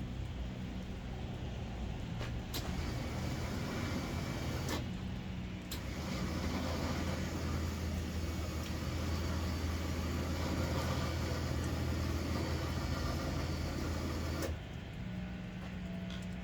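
Electric winch motor whirring in stretches as it is switched on and off by its wireless remote: it starts about two and a half seconds in, pauses briefly around five seconds, then runs steadily and cuts off sharply about fourteen seconds in. A vehicle engine idles steadily underneath.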